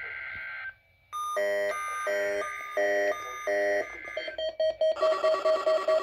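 A NOAA Weather Radio digital header burst, a harsh buzz, ends under a second in. Then the weather alert radios start alerting: four electronic beeps, followed by a fast repeating beep of about four or five a second as a further radio joins. The radios have decoded a Required Weekly Test.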